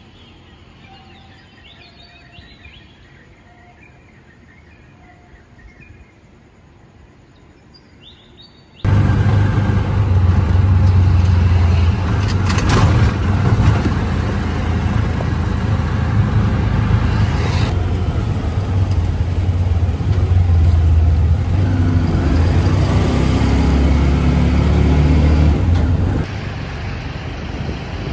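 Birds chirping faintly. About nine seconds in, an abrupt cut brings a loud, steady vehicle rumble with a low engine drone, which turns somewhat quieter after another cut near the end.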